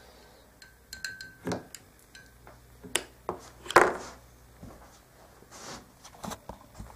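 Handling noise on a workbench: a small wet linear servo and its wires are lifted out of a glass mug of water, with scattered clicks and knocks against the glass and bench top. The loudest knock comes about four seconds in, and there is a short hiss near the end.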